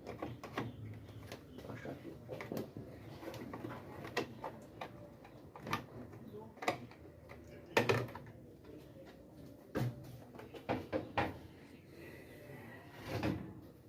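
Irregular clicks and knocks of hands and tools handling the washing machine's plastic panels and fittings while it is being taken apart, the loudest knock a little past the middle.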